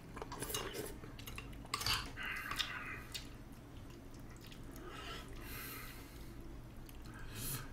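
Metal spoon clinking and scraping against a bowl of yukgaejang soup while eating, a few sharp clinks in the first three seconds and another near the end.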